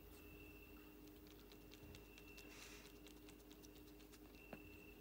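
Faint, quick clicks and crunches of a cat chewing a boiled snake, over a steady low hum.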